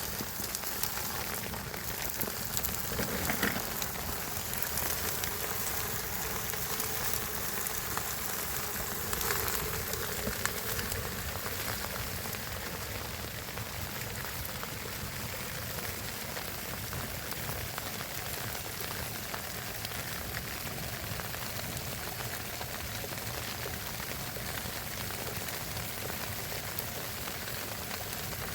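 Steady rain falling, an even hiss of drops that runs on without a break.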